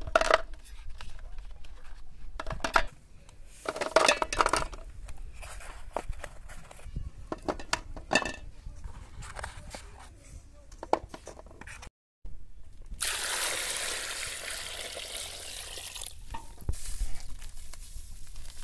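Raw eggs clinking and knocking against one another and against a large aluminium pot as they are handled and set in. After a short break, water pours into the pot for about three seconds.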